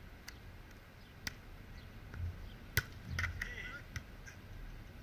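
A handful of short, sharp knocks and clicks, the loudest nearly three seconds in, over a steady low rumble.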